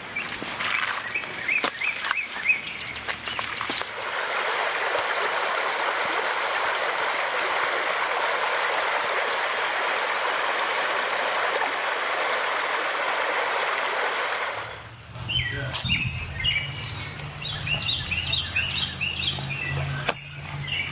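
A small stream babbling steadily for about ten seconds, stopping abruptly; birds chirp before it starts and again after it stops, when a low steady hum comes in as well.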